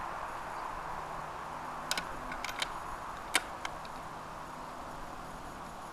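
Steady outdoor insect drone with a few light, sharp clicks from about two seconds in; the loudest click comes about three and a half seconds in.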